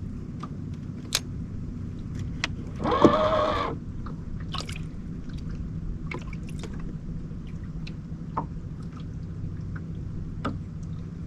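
Water lapping and dripping against a boat hull over a steady low hum, with scattered small clicks and knocks and one brief pitched sound about three seconds in.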